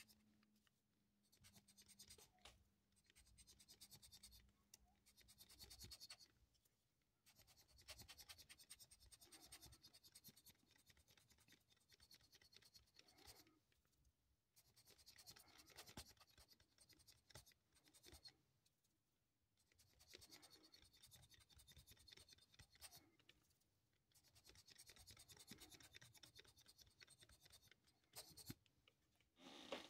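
A soft plastic condiment bottle squeezed over and over as a static grass applicator. Each squeeze gives a faint, scratchy hiss of air puffed from its nozzle, in bursts of one to three seconds with short pauses between.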